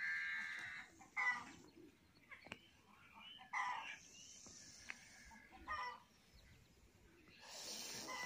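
Chickens clucking and calling in a handful of short separate calls, with a stretch of hiss near the end.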